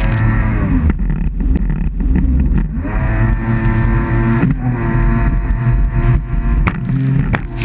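Jet ski engine running hard, its pitch dropping and rising again as the throttle is eased and opened, with a rise about three seconds in.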